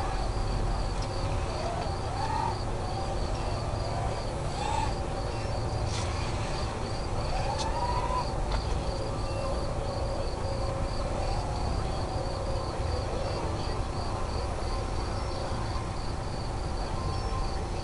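Crickets chirping in a steady pulsing rhythm, about three pulses a second, over a low rumble. Faint whines slide up and down in pitch now and then.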